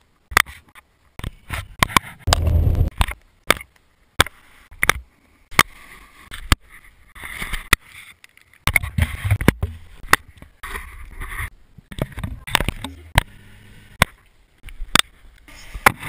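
Helmet-camera audio of skiing: skis scraping over snow and wind rumbling on the microphone, broken into short bursts by many sharp clicks and knocks.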